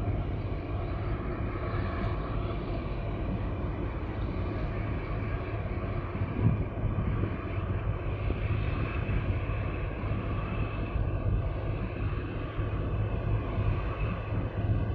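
Steady low engine drone with a constant hum, under a rumbling haze of wind and water noise, and a single thump about six and a half seconds in.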